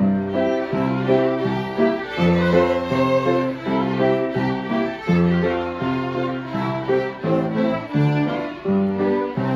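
A group of fiddles playing a lively tune together in a steady rhythm, with piano accompaniment carrying the bass notes.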